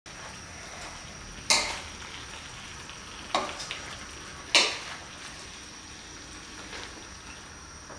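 Pork trotters, tomatoes and onions sizzling in a wok while being stirred with a wooden spatula. Three sharp clatters of the spatula against the pan stand out in the first five seconds.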